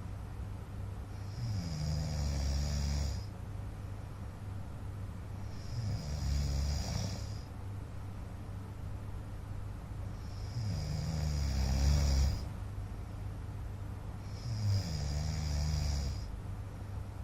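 A man snoring in his sleep: four long snores, one every four to five seconds, over a steady low hum.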